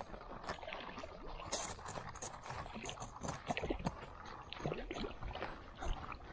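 Water splashing and lapping close by, in many irregular small splashes and clicks.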